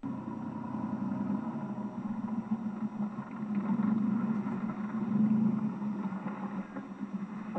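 A vehicle running steadily, with engine hum and road noise as heard from inside; the sound cuts in suddenly at the start.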